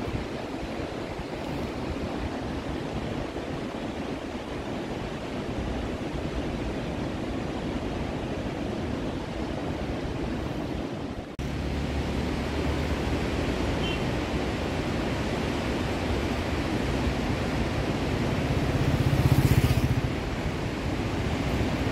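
Steady outdoor wind and road noise buffeting the microphone; about halfway through a low steady engine hum comes in, and near the end an approaching motorcycle engine grows louder.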